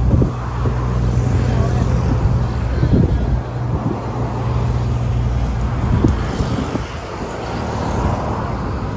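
Tour bus engine running with a steady low rumble while driving, mixed with road traffic noise and a few light knocks.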